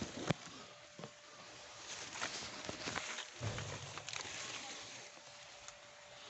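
Rustling and crackling of dry leaf litter underfoot and leaves brushing past a handheld phone as it is pushed through dense foliage, with a brief low rumble about three and a half seconds in.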